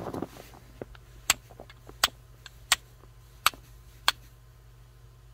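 Flint and steel striking: a steel striker hit sharply against a piece of flint five times, about two-thirds of a second apart, with a few lighter taps between, to throw sparks onto char cloth held on the stone.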